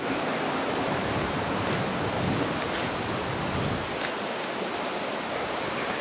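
A river rushing over rocks and the remains of a weir, a steady hiss of white water. A few faint clicks come through it.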